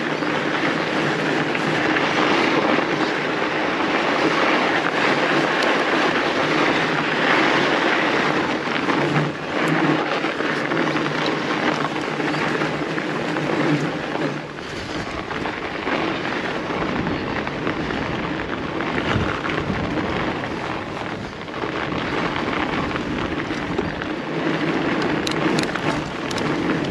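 Fat bike rolling along a packed-snow trail: steady hiss and crunch of the wide tyres on snow, with occasional knocks and rattles from the bike over bumps, heard close up from the handlebars.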